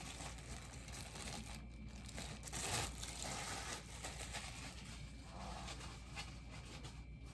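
Packaging crinkling and rustling as a boxed bobblehead is unwrapped by hand, with a louder crinkle about two and a half seconds in.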